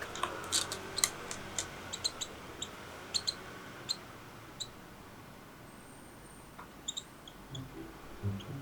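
Baby parrot chick giving a series of short, high, thin peeps, scattered and irregular, mixed with a few faint clicks.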